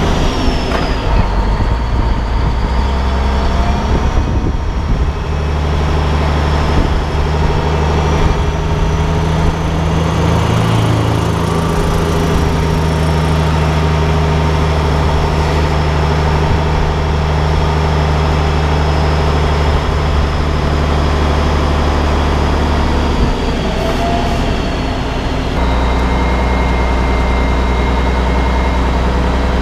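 Heavy truck's diesel engine running steadily at low speed, its note changing near the end.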